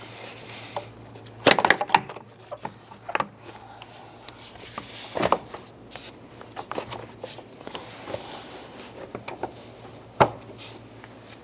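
Plastic air filter box and rubber intake tube being worked into place by hand: scattered rubbing and short plastic knocks, the sharpest about a second and a half in, about five seconds in, and just after ten seconds. A steady low hum runs underneath.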